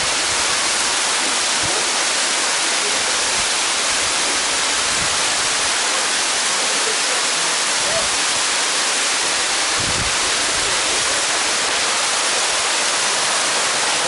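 Loud, steady rush of a small waterfall pouring down stepped rock.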